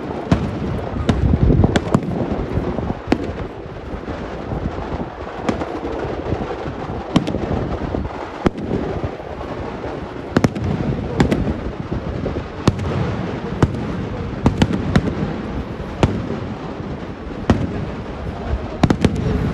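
Kerala temple-festival fireworks (vedikettu) going off in a long, dense series: sharp bangs about one or two a second at irregular intervals over a continuous low rumble from the volley.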